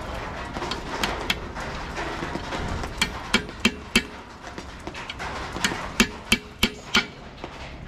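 Hammer striking metal in two quick runs of blows, four and then five, about three a second, each with a short metallic ring.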